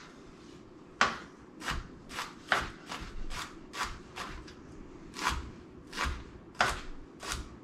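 Chef's knife mincing a shallot on a plastic cutting board: about a dozen sharp knife strikes at uneven intervals, starting about a second in.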